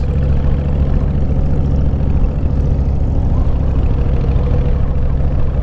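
Motorcycle engine running steadily while riding, a constant low drone with no change in pitch.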